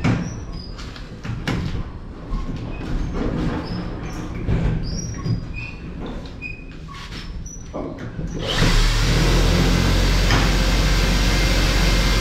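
Scattered knocks and taps as fibre-cement boards are worked into place on a metal-stud wall. About two-thirds of the way in, a steady, loud power-tool motor starts running.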